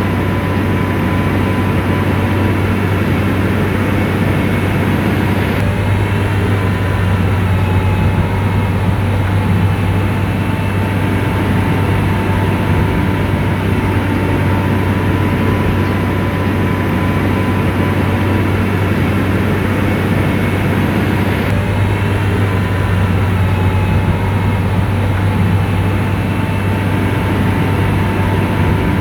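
Komatsu bulldozer's diesel engine running steadily, a heavy low drone with a thin steady whine above it. The sound shifts slightly about six seconds in and again about twenty-two seconds in.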